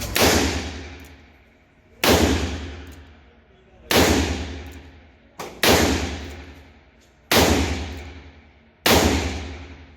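Handgun firing six shots of near-maximum handloads (2400 powder), one every second and a half to two seconds, each blast ringing out in a long echo through the indoor range. A fainter pop comes just before the fourth shot.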